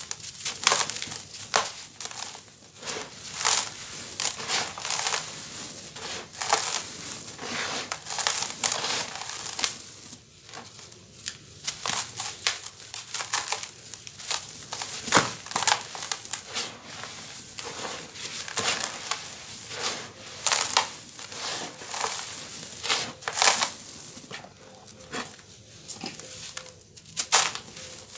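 Hands crushing and crumbling dry lumps of packed sand: a steady run of irregular, gritty crunches, some much louder than others.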